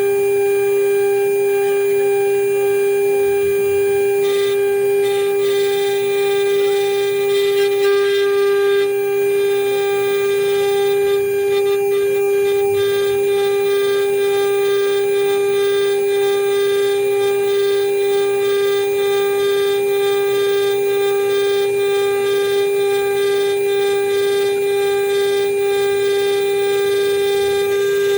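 CNC router spindle running with a steady high-pitched whine, its bit milling a marine aluminum seal plate.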